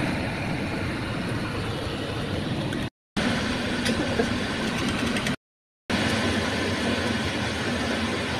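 A steady hum and hiss, like a running motor, cut off abruptly twice, about three and five and a half seconds in. A few light clicks come about four seconds in.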